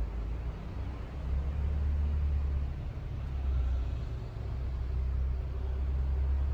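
Steady low rumble of passing road traffic, growing louder a little over a second in.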